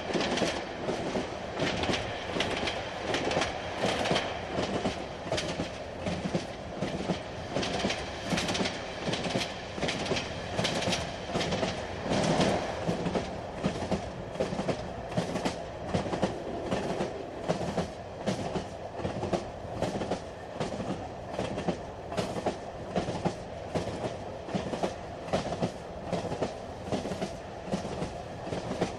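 Inside a moving train carriage: a steady rumble with the regular clickety-clack of the wheels running over the rail joints.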